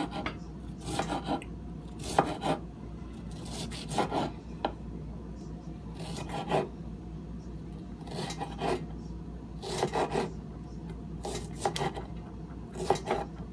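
A knife slicing a small white onion on a wooden cutting board: irregular groups of knocks and rasping cuts every second or two.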